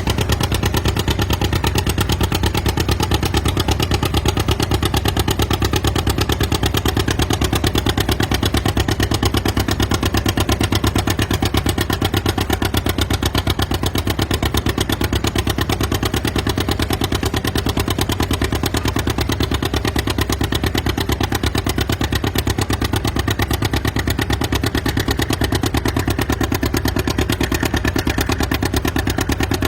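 Antique farm tractor engine running at a steady, even beat, with no change in speed.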